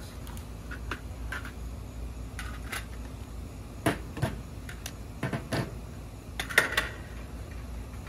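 Nylon sling bag rustling and sharp knocks and clicks as pistol magazines are pulled from its pockets and set down on a tiled tabletop. The loudest knocks come about four seconds in and again about six and a half seconds in.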